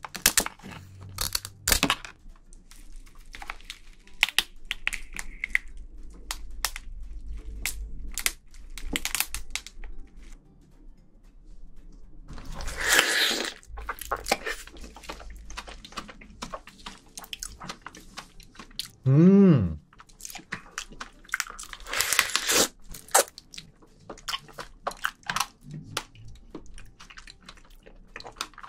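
Close-miked eating of raw soy-sauce-marinated crab (ganjang gejang): scissors snip through the crab shell early on, then come sucking and slurping from the shell and chewing, with sharp clicks and crunches throughout. About two-thirds of the way in there is one short, loud hum from the voice that rises and falls in pitch.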